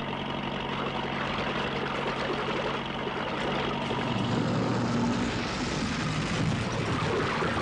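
Tractor engine running hard in a film soundtrack, its hum stepping up in pitch about four seconds in.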